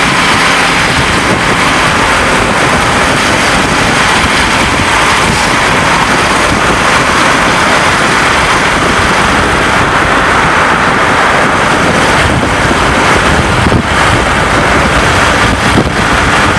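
Loud, steady rush of wind and road noise from a moving vehicle, with wind buffeting the microphone.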